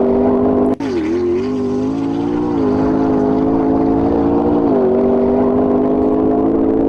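A high-performance car engine accelerating hard under load through the gears. Its pitch falls briefly at each upshift, about a second in, again around two and a half seconds, and near five seconds, then climbs again.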